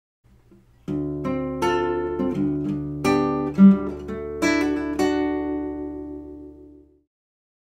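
Short outro jingle on acoustic guitar: plucked notes and strums starting about a second in, ending on a chord that rings out and fades away.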